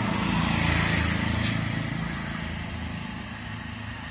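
A motor vehicle passing on the road, its engine noise swelling to a peak about a second in and then fading away.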